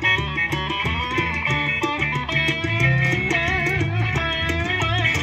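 Live band playing: electric guitar with bent, wavering lead notes over bass guitar and a steady beat.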